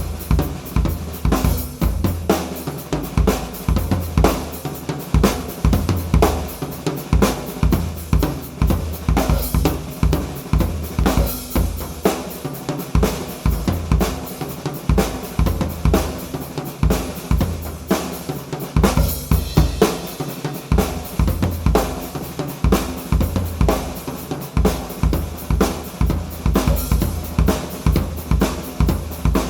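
Full drum kit played continuously: a Sakae Trilogy kit with 3-ply maple/poplar/maple shells, a Ludwig LM552 bronze snare and Paiste cymbals and hi-hats. Kick drum, snare, toms and cymbals are struck in a steady, dense run of strokes.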